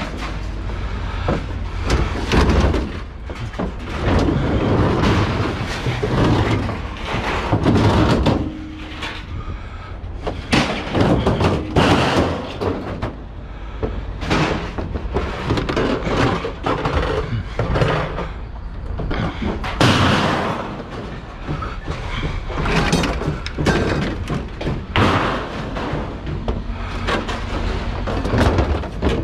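Scrap metal, aluminum among it, clanking and crashing again and again at irregular intervals, over a steady low rumble.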